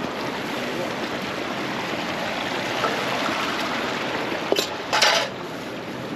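Steady rush of a rocky stream and waterfall, an even wash of water noise. Two brief sharp sounds break through about four and a half and five seconds in.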